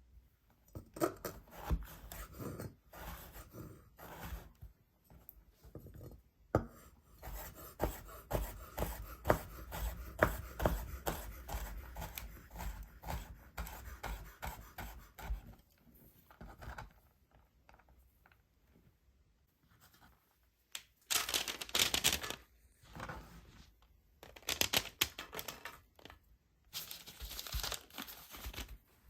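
Hands preparing ingredients in a small kitchen: scattered clicks and knocks, then a long run of quick repeated strokes at about three a second, followed by two longer bursts of noisy rustling near the end.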